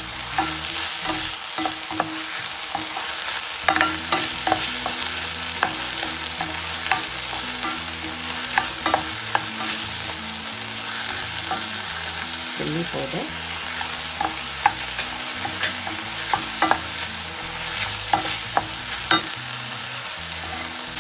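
Diced onion and bell peppers sizzling in oil in a stainless steel frying pan while a spatula stirs them, scraping and tapping against the pan in frequent short clicks.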